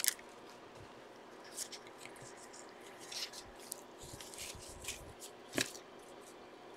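Trading cards being handled quietly on a table: faint rustles and a few short clicks and taps, the sharpest about five and a half seconds in.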